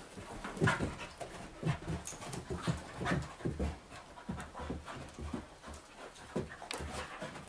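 Two dogs play-fighting, panting hard in short, irregular bursts, with bodies and paws scuffling against a sofa and the floor.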